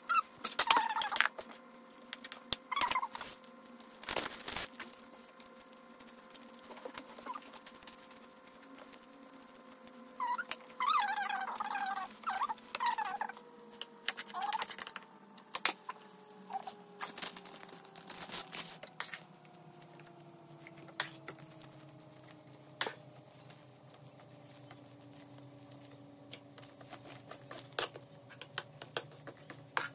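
A metal spoon scraping and tapping on a plate and hands pressing and handling nori sheets, in scattered clicks and scrapes. A faint machine hum slowly falls in pitch through the second half, and a brief voice-like sound comes about ten seconds in.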